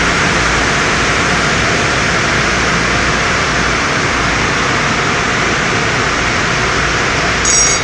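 Car wash spray arches blasting water onto a car, a loud steady hiss of spray mixed with the hum of the wash machinery. A brief, louder, sharper sound cuts in near the end.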